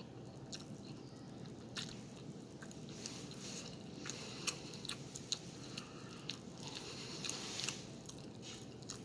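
A person chewing a mouthful of food, with sharp wet mouth clicks and smacks scattered through.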